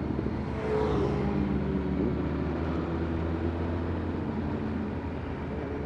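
Motorcycle engine running at steady road speed under the rider, with wind noise; the engine pitch climbs gradually near the end as it speeds up.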